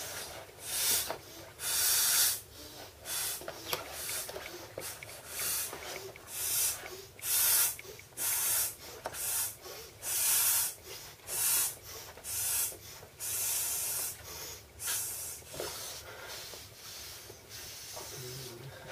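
A person blowing up an inflatable Aquamania swim ring by mouth: quick repeated breaths, hissing air drawn in and then blown into the valve, about one to two a second. The breaths grow fainter in the last few seconds.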